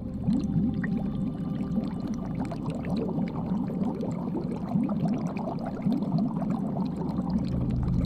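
Steady underwater bubbling and gurgling water, a dense stream of small bubbles: an aquarium water sound effect.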